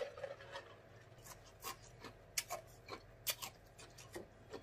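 A man drinking from a glass: faint short clicks and sips, scattered about half a second to a second apart.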